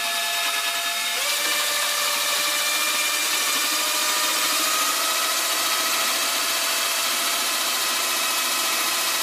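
Power drill spinning a degassing stir wand in a glass carboy of wine, mixing in the Sparkolloid fining agent and driving out dissolved gas. A steady motor whine that shifts pitch once about a second in as the speed changes.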